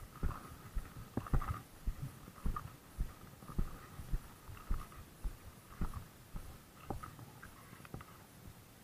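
Footsteps of a person walking on a concrete walkway, heard as dull thumps about twice a second through a body-worn camera, dying away near the end as the walker stops.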